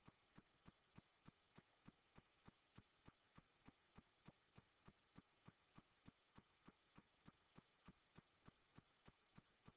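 Near silence with a faint, even ticking, about three ticks a second.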